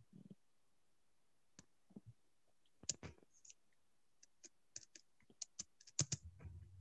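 Faint, irregular clicking at a computer, sparse at first and coming thicker over the last two seconds or so, with a low hum coming in near the end.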